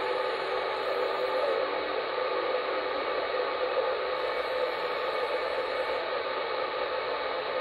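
SSB CB radio receiver on channel 38 (27.385 MHz) putting out steady band static and hiss through its speaker with no station coming through, a few faint steady tones riding in the noise.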